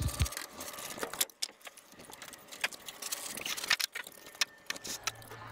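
Pea gravel crunching and rattling: a run of irregular, sharp little clicks, a few louder ones standing out.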